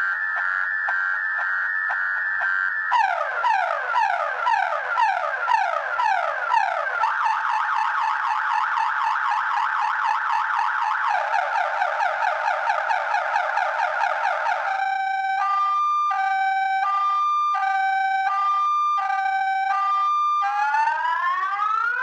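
Viper car alarm siren in full panic mode, cycling through its tones: a rapid warble, then slow rising sweeps, fast rising chirps and another warble, then a high-low two-tone about halfway through, and rising sweeps again near the end.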